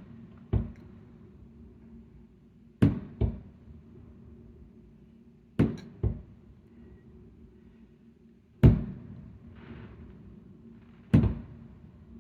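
Fireworks shells going off over water, a sharp bang about every three seconds, mostly in pairs half a second apart. The loudest bang comes about eight and a half seconds in and fades out slowly.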